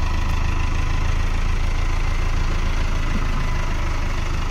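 Diesel tractor engine idling steadily with a low, even note.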